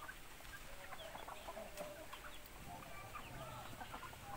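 A flock of chickens clucking and chirping while they feed, with many short calls overlapping one another.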